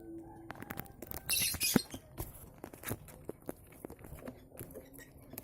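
Rustling and light scratching clicks in a lovebird nest with newly hatched chicks, with a short hissy burst about a second and a half in.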